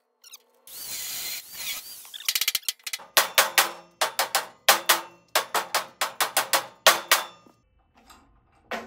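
A hammer striking the steel frame and caster bracket of a motorcycle lift, about a dozen sharp metallic blows with a ringing tone, coming in quick runs. Before them, about a second in, there is a steady noisy hiss lasting a second and a half.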